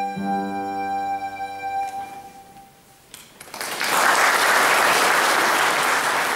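Recorder and piano holding the final chord of a piece, which dies away about two seconds in. After a brief hush the audience applauds, and the clapping stays loud to the end.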